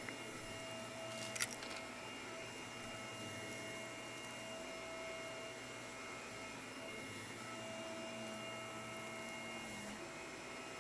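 Shark vacuum cleaner running steadily, a constant motor hum with a steady high tone over it. One sharp click about a second and a half in.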